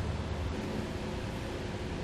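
Steady background hiss with a low hum that eases about half a second in; no distinct tool sounds.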